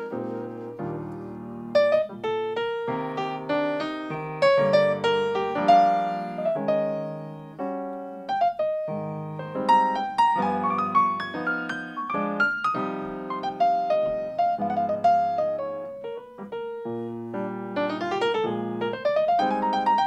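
Acoustic grand piano playing an unaccompanied jazz improvisation: flowing single-note runs over chords. A held saxophone note ends right at the start.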